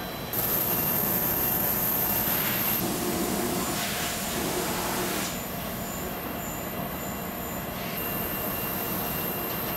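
Steady mechanical noise from an industrial parts-washing tank. A thin high-pitched whine sets in just after the start, drops away before three seconds, and returns near the end.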